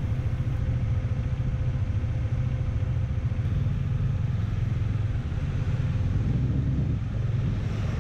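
Motorcycle engine running at low speed in slow, stop-and-go traffic: a steady low rumble, with a faint steady tone above it for most of the time.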